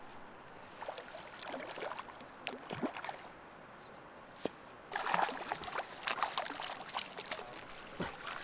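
Light splashing and sloshing of lake water as a hooked cutthroat trout is brought in, with scattered small splashes and ticks, busier from about five seconds in.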